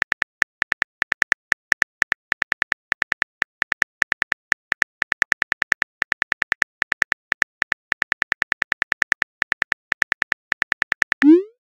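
Phone on-screen keyboard click sounds typing out a message, fast irregular taps about six a second. Near the end a short rising swoosh as the message is sent.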